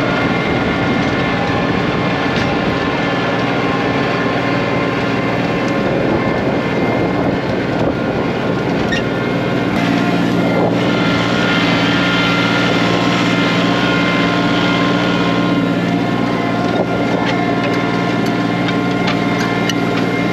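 Kioti CK2510 compact tractor's diesel engine running steadily at working speed. Its note shifts about halfway through, as the load or throttle changes.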